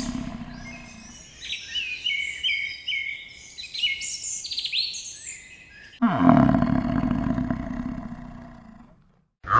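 A loud, low, rough animal call fades out, then a run of high bird chirps follows for several seconds. About six seconds in, the loud low call starts again suddenly and fades away.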